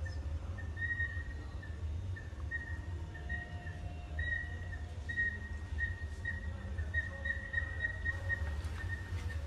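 A high whistling tone that holds steady but pulses unevenly, with fainter lower tones coming and going, over a steady low hum.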